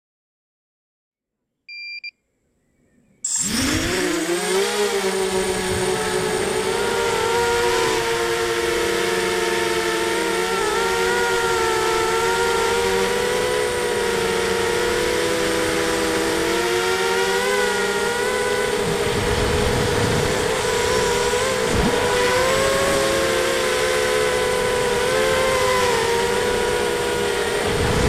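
A short electronic beep about two seconds in, then the ZMR250 quadcopter's four 2300 kV brushless motors with 5-inch props start suddenly about three seconds in. They run on as a loud whine with rushing air, the whine wavering up and down in pitch as the throttle changes, heard from the onboard camera.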